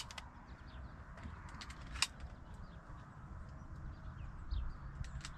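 Quiet open-field ambience: a low steady wind rumble with a few faint clicks and rustles, one sharper click about two seconds in.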